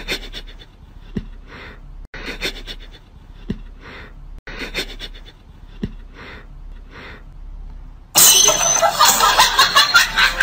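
A house cat hissing in short, sharp spits, about one every second, as a socked foot prods its face. From about eight seconds in, a much louder, harsher burst of noise.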